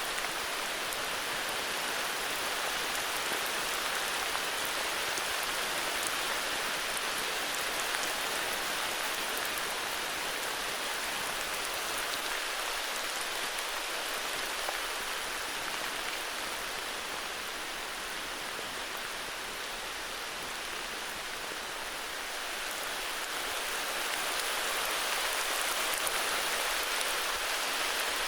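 Heavy rain falling steadily, a dense, even hiss of drops with fine pattering, dipping slightly in loudness midway and swelling again near the end.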